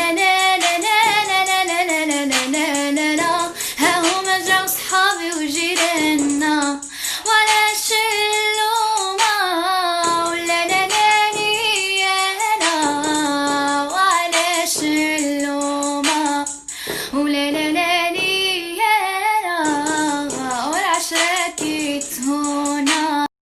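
A young woman's solo voice singing wordless, ornamented raï-style runs: long held notes broken by quick wavering melismas. It cuts off abruptly near the end.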